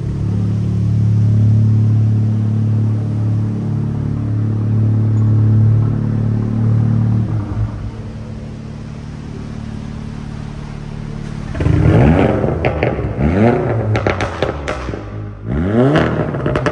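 Volkswagen Golf R Mk7's turbocharged four-cylinder engine running with a steady low hum. About two-thirds of the way in it is revved in rising blips, with crackles between them.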